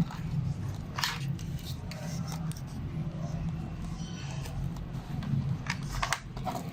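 Hands handling parts inside an opened laptop: a few short sharp clicks, one about a second in and two near the end, over a steady low hum.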